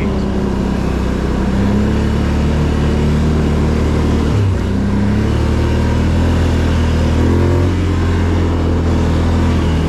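Can-Am Outlander ATV engine running steadily as it is ridden, with a short dip in engine pitch about four seconds in before it picks back up.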